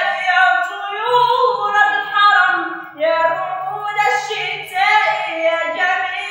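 A boy singing an Arabic nasheed (Islamic devotional song) in a high, clear voice, drawing out long held notes.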